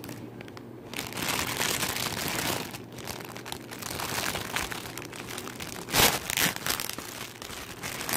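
A crinkly wrapper rustling and crackling as a skein of yarn is pulled out of it by hand. It starts about a second in, with louder crackles near six seconds and again at the end.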